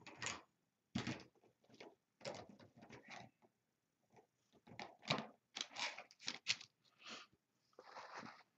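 A paintbrush working acrylic paint: a quiet string of short, irregular scraping and brushing strokes with brief pauses between them.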